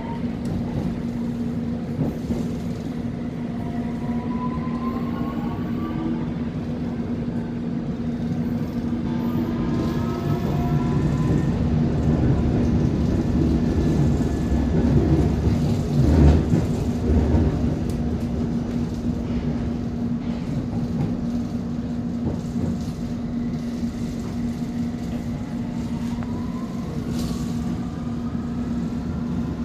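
A London Underground Circle line S Stock train heard from inside the carriage as it runs between stations. There is a steady rumble of wheels on track over a constant electric hum, and the traction motors whine in rising tones several times. The rumble swells louder about halfway through.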